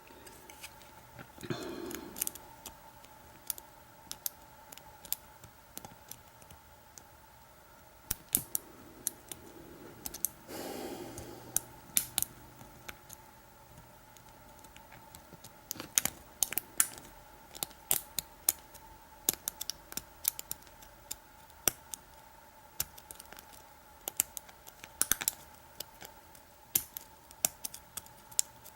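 Lock pick and tension wrench working the pin tumblers of an American Lock 5200 padlock: irregular small metallic clicks and taps throughout, with two brief soft rustles near the start and about ten seconds in.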